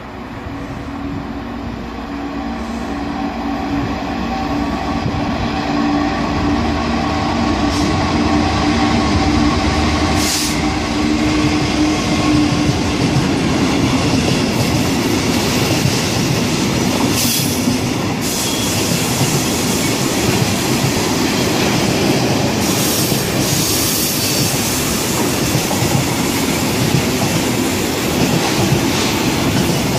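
Container freight train approaching and running past close by. The sound is a steady hum that grows louder over the first dozen seconds as the locomotive nears, then the wagons rumble and clatter over the rails, with a few sharp high squeals from the wheels.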